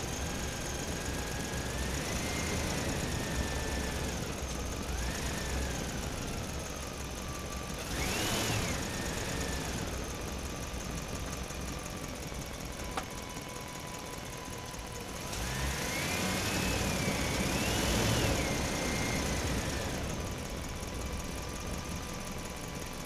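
Truck engine running steadily, with a whine that rises and falls in several swells as it revs up and eases off.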